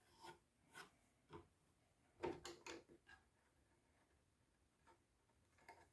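Near silence broken by a few faint knocks and clicks of wood and tools being handled, the loudest a quick cluster of three about two seconds in.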